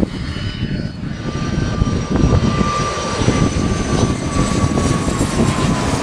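Jet airliner on its landing approach passing low overhead, which the filmers take for a Sukhoi Superjet. Its engine whine slowly falls in pitch over a rumble that grows louder about two seconds in.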